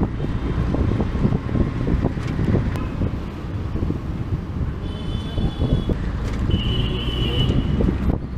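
Auto-rickshaw engine running steadily under way, with wind buffeting the microphone and the surrounding street traffic. Two short high beeps sound in the second half, about a second and a half apart.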